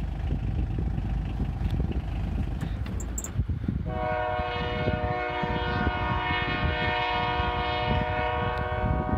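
Diesel freight locomotive's air horn sounding one long chord of several notes, starting about four seconds in and held to the end, over a steady low rumble.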